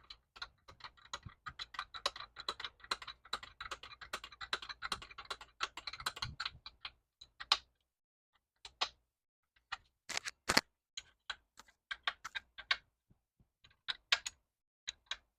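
Rapid light mechanical clicking and ticking for about seven seconds, then scattered separate clicks and a few sharper knocks, from hand work on an e-bike's rear wheel and its fittings.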